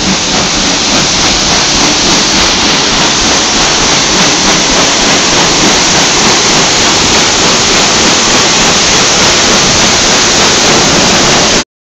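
Steamboat Natchez's red stern paddlewheel churning the river, a loud, steady rush and splash of water. It cuts off suddenly near the end.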